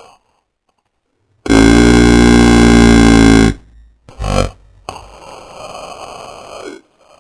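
Made-up creature calls for an imaginary wolphin. After a short silence comes one very loud call held at a steady pitch for about two seconds, then a brief burst, then a quieter, similar call of about two seconds.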